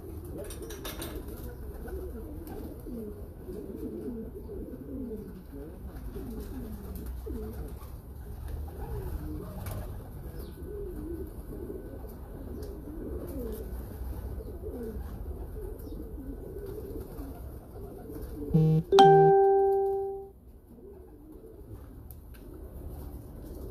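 Pigeons cooing steadily, many overlapping coos. About 19 seconds in comes a brief low buzz and then a loud ringing tone that fades away over about a second.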